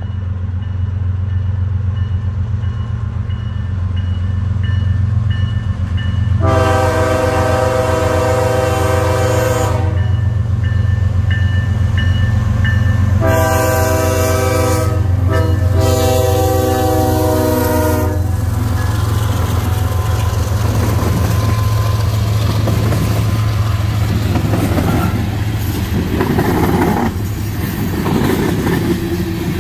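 Two diesel freight locomotives approaching a grade crossing with the crossing bell ringing. They sound the air horn in two long chords, the second briefly broken, about 7 and 13 seconds in. From about 19 seconds on, loaded tank cars rumble and clatter over the crossing.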